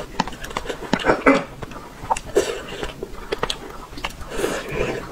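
Close-miked mouth sounds of eating braised fish: wet chewing, lip smacks and short clicks, with a few longer sucking or slurping noises.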